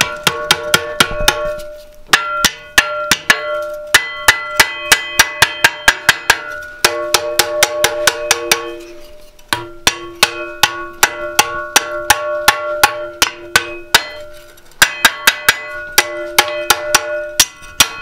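Hand hammer striking hot mild-steel flat bar on an anvil in quick runs of about four blows a second, with brief pauses between runs; each blow sets off a loud ringing from the anvil at several fixed pitches. The blows are forging the end of a leg vise spring around its leg.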